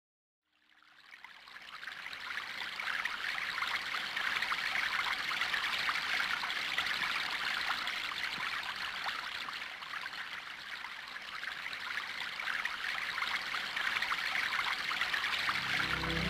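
Running water of a stream, a steady rushing babble that fades in from silence over the first couple of seconds. Soft music starts right at the end.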